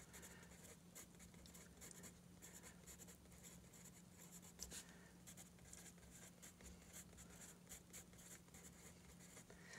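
Faint pencil scratching on sketchbook paper as words are hand-written, in many short strokes, over a low steady hum.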